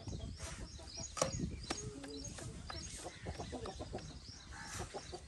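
Chickens clucking, with scattered short knocks and clicks.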